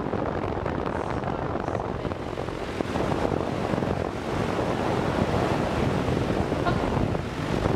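Wind buffeting the camera microphone: a steady, rough rushing noise.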